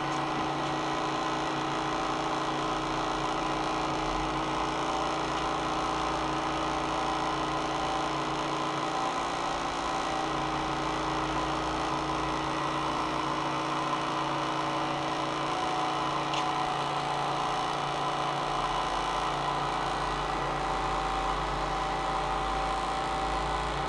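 Cotton candy machine running, its motor and spinning head giving a steady whirring hum with a few faint shifts in the low end.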